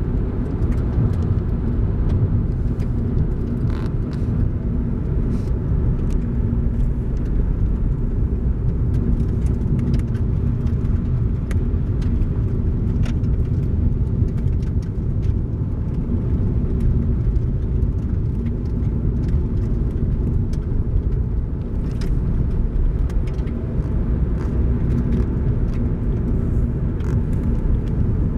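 A car driving at a steady pace: continuous low road and engine rumble with a faint steady hum, and scattered faint ticks.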